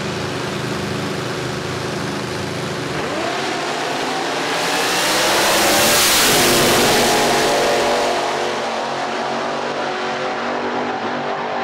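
Drag racing car engine at full throttle down the strip. It swells to its loudest as the car passes close by about six seconds in, and its pitch drops as it goes away.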